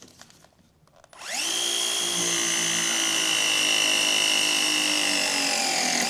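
Battery-powered pipe press tool running as its jaw crimps a press fitting onto copper gas pipe, compressing the fitting's O-ring to make the joint solid. The motor whine starts about a second in and holds steady, its pitch sagging slowly as it works under load.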